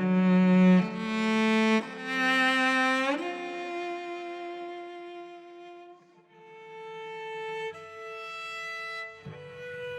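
Slow music on bowed strings, violin and cello, playing held notes: louder notes changing about once a second at first, then long sustained notes that dip briefly about six seconds in and continue more quietly.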